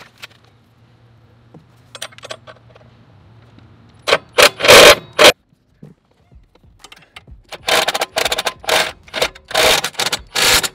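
Cordless power tool run in short trigger bursts, driving lock nuts tight on the PTO clutch bracket. A cluster of loud bursts comes about four seconds in, then after a pause a string of shorter bursts, about two a second.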